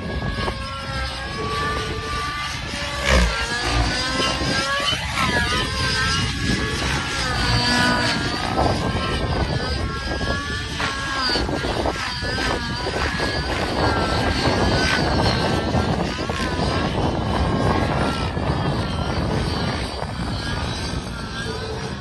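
Nitro-powered Protos 700 RC helicopter flying overhead: its glow-fuel engine and main rotor run continuously, the pitch rising and falling as it climbs, flips and changes direction, with a brief louder jolt about three seconds in.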